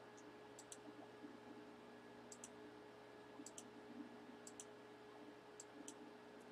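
Faint computer mouse clicks, about five or six, most heard as a quick double tick, over a faint steady hum: clicking the randomize button on a web page.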